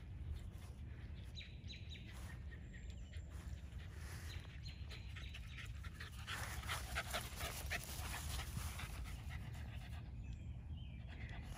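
A miniature pinscher panting hard after running, in quick rapid breaths that are loudest for a few seconds past the middle; small birds chirp faintly in the first half.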